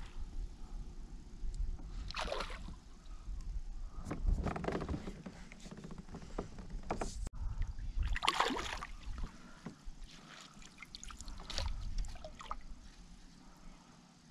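Hooked bass thrashing and splashing at the surface beside a kayak while being played to the net: several short bursts of splashing, with water sloshing against the hull.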